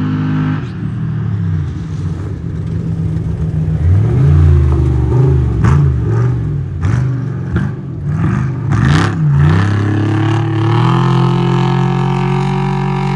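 Off-road race truck engine revving hard up and down several times, with a few sharp cracks in the middle, then holding a steady drone near the end.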